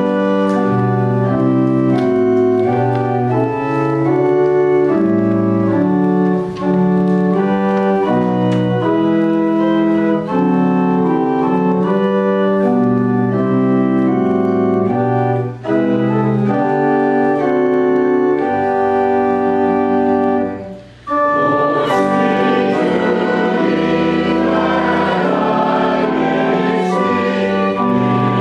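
Church organ playing a hymn introduction in sustained chords. About 21 s in it pauses briefly, then the congregation joins in singing the hymn with the organ.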